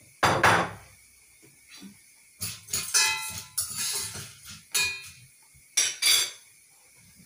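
A stainless-steel cooking pot and utensils clattering on a gas stovetop: a series of knocks and scrapes, some with a brief metallic ring. They come in clusters about a quarter second in, from about two and a half to five seconds, and again around six seconds.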